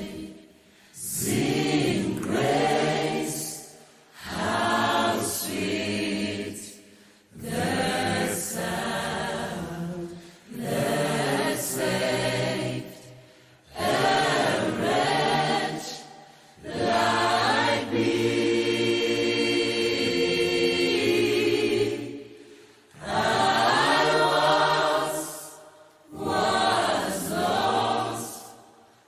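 A choir singing in short phrases of two or three seconds each, with brief breaks between them. About two-thirds of the way through, one chord is held for about five seconds.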